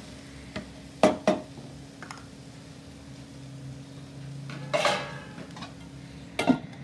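Cookware clatter: a wooden spatula knocking against a nonstick kadai of onion-tomato masala, two sharp knocks about a second in, then a louder metallic clank with a brief ringing about five seconds in and one more knock near the end.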